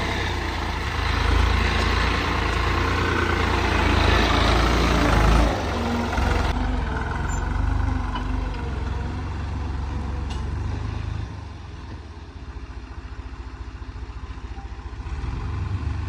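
Diesel engine of heavy farm or earthmoving machinery running steadily, loudest in the first five seconds or so and dropping noticeably quieter after about eleven seconds.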